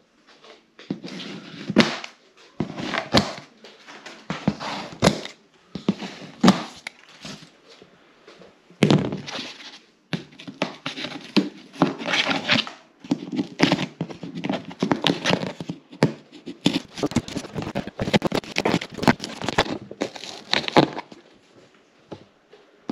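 A large cardboard shipping box being handled and its plastic packing straps pulled off: irregular scraping, rustling and knocks, with several sharper thuds.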